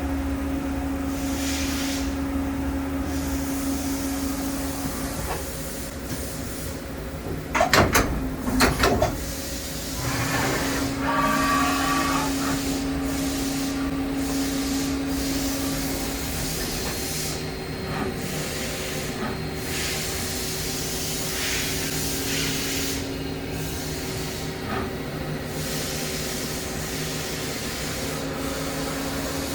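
Daewoo DMV4020 CNC vertical machining center running, a steady hum with a hiss over it. A few sharp clanks come about eight seconds in.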